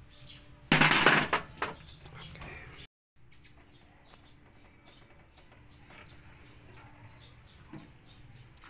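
A short, loud scraping rustle about a second in, from hands handling the timing belt tensioner and a tool, followed by a couple of light clicks. After that comes a quiet background with faint birds chirping.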